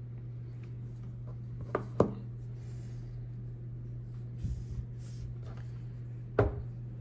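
Small metal lock parts being handled on a work surface: two sharp clicks about two seconds in, a few soft knocks midway and another sharp click near the end, over a steady low hum.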